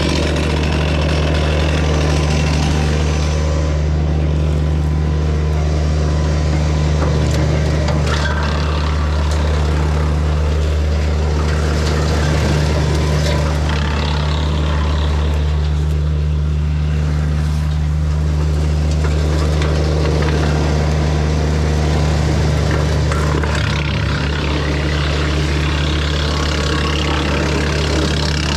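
Kubota BX compact tractor's diesel engine running at a steady speed, a constant low hum with a hiss of higher noise over it.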